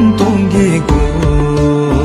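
A male voice singing a slow devotional prayer song, holding and bending long notes, over a steady low instrumental drone with a few soft percussive beats.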